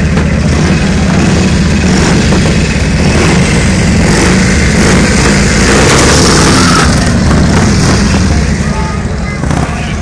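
Harley-Davidson police motorcycles' V-twin engines running loudly as they ride round the arena, the sound swelling about halfway through as one passes close and easing near the end.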